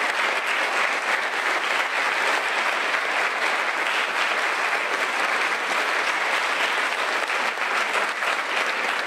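Large seated audience applauding steadily with sustained hand clapping, the even clatter of many hands at once, at the end of a talk.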